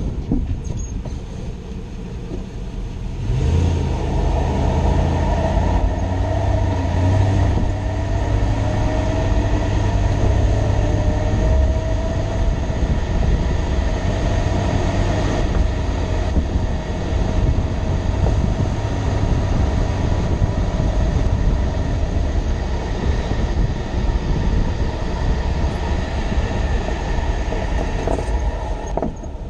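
2006 Toyota Tundra running, a steady low rumble of engine and drivetrain with a faint wavering whine above it; the rumble grows louder about three seconds in.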